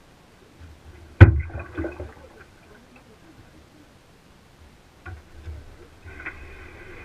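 A paddle knocks hard against the hull of a metal canoe about a second in, and the hull rings briefly, with a few lighter knocks after it. A second, weaker knock comes about five seconds in.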